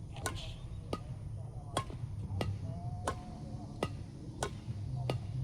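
Badminton rally: rackets striking a shuttlecock back and forth, about eight sharp hits roughly two-thirds of a second apart.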